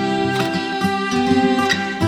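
Background music: a plucked, guitar-like melody with sustained notes.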